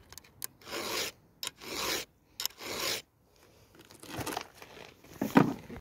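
Round file rasping across the cutters of a .325-inch-pitch chainsaw chain in three strokes about a second apart, with light clicks between them: the chain being sharpened by hand. Fainter scraping follows, with a short louder sound near the end.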